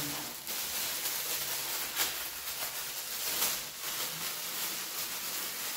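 Thin plastic bag crinkling and rustling as hands work it open to unwrap a remote control, with a couple of sharper crackles about two and three and a half seconds in.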